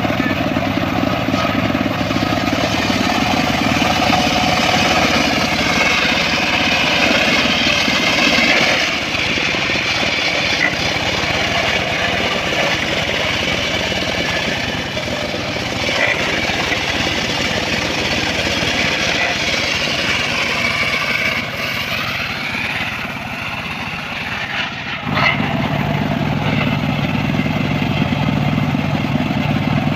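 Engine-driven circular saw running through mahogany wood, its tone shifting as the blade works through the cuts. About 25 seconds in, it settles into a steadier, deeper hum.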